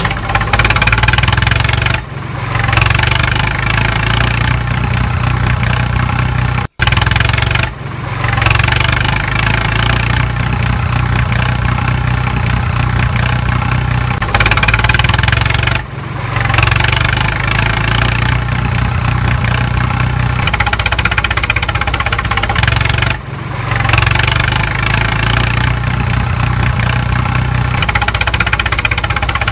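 Tractor diesel engine running steadily at idle, the sound cutting out briefly several times, once to complete silence for a moment.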